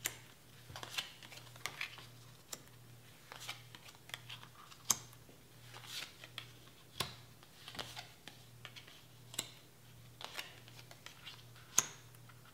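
Cards being handled and laid one by one onto a board game's board: irregular soft clicks, taps and slides of card stock, over a faint steady low hum.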